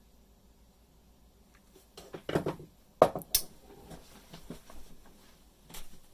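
Small metal hand tools clinking and clattering against a padlock and a hard surface: a cluster of clicks about two seconds in, one sharp click a second later, then lighter scattered taps.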